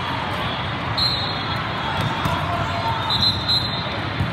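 Volleyball gym ambience: balls bouncing and being struck on the court, over a steady background of voices in a large, echoing hall.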